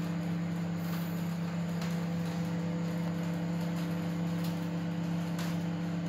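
Electrolux EMS3082CR microwave oven running on its combi setting (top grill plus microwave): a steady low hum with a few faint clicks.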